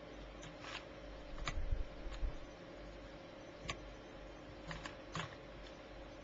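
Faint handling sounds of hand-soldering a small circuit board: scattered light clicks and taps of the soldering iron and solder wire against the board, with a low bump about two seconds in, over a steady faint hum.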